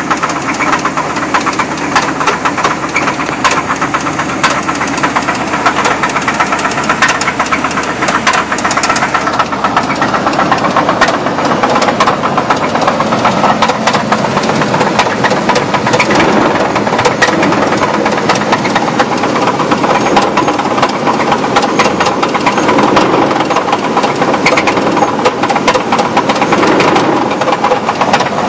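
2000 Chevy Blazer's 4.3-litre V6 engine running with a rapid, steady knock from inside the engine.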